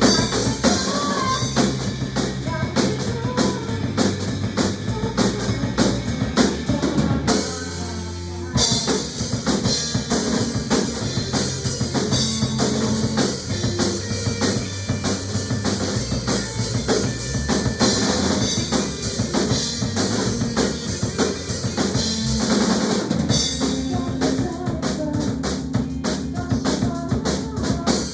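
Song playback with a steady, driving drum-kit beat, bass drum and snare, over a bass line; the drums drop out briefly about seven and a half seconds in, then come back.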